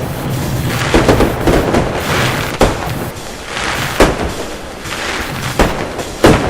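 Fireworks going off: about five sharp booms, each trailing off, at irregular intervals of a second or so, over a steady background rumble.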